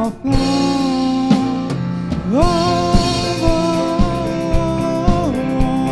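Live band playing a pop ballad with drums, bass and guitar; a singer holds two long notes, the second rising about two seconds in and falling near the end, over regular drum hits.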